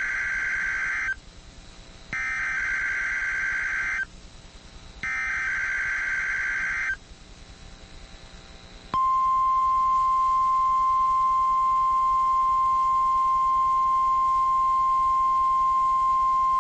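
NOAA Weather Radio test alert signal. It starts with the end of one SAME header data burst, followed by two more, each a harsh electronic tone burst about two seconds long with about a second between them. After a two-second pause, the steady 1050 Hz warning alarm tone begins about nine seconds in and holds.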